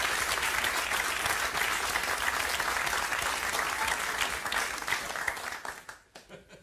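Studio audience applauding, a dense patter of many hands clapping that thins out and dies away near the end.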